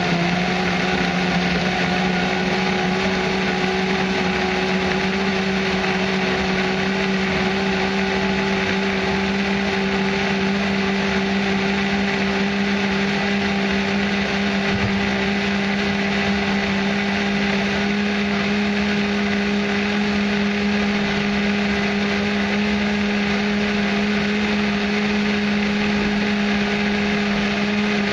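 Countertop blender motor running steadily while pureeing a thick mash of cranberries, raisins and water. Its pitch rises slightly in the first second, then holds steady.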